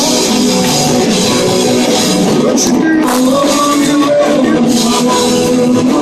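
Live rock and roll band playing loudly, with singing over strummed acoustic guitar.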